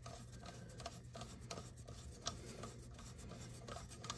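Faint scraping and scattered small clicks of a nut being turned by hand onto a toilet tank-to-bowl bolt, spinning until it catches the thread.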